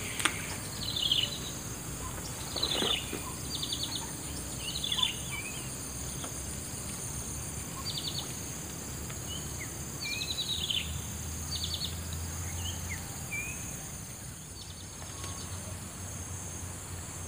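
Outdoor ambience: a steady high drone of insects, with short chirping bird calls and quick trills repeating every second or so.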